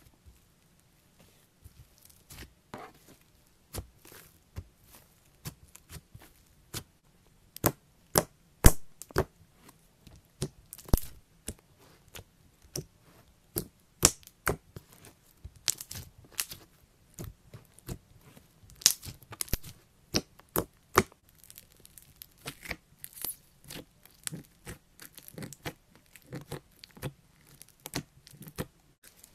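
Slime being pressed, squeezed and poked by hand, giving sharp, irregular clicks and crackles. The clicks are sparse at first and come thickest and loudest in the middle stretch.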